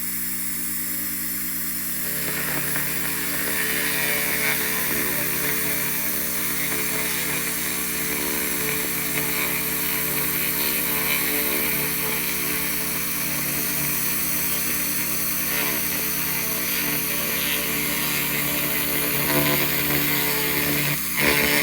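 Handheld laser rust-removal machine running: a steady hum, with a crackling hiss of the beam on the metal that starts about two seconds in and cuts out briefly near the end.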